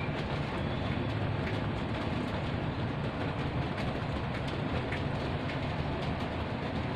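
Steady heavy rain, an even rushing noise with faint scattered taps.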